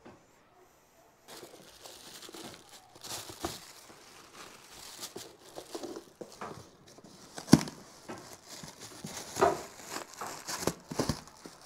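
White protective wrapping crinkling and rustling as it is handled and pulled around the round frames of an LED ceiling light, starting about a second in, with a few sharp knocks; the loudest comes about two thirds of the way through.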